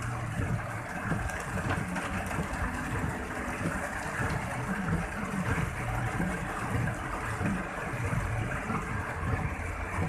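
Heavy rain hitting a car's roof and windscreen, heard from inside the cabin as a steady hiss over the low rumble of the car moving in traffic.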